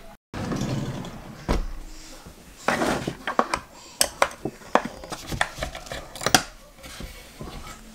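Small metal screws and drawer hardware clinking and tapping against the wooden bottom and sides of a cabinet drawer as they are handled: a dull knock about a second and a half in, then a run of sharp irregular clicks.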